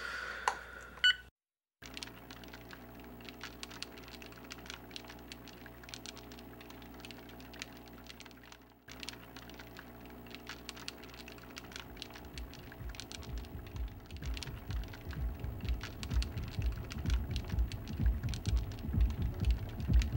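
A short electronic beep from a cordless phone handset about a second in, then faint scattered light clicks over a low hum. From about twelve seconds in, a low, even beat fades in and grows louder toward the end.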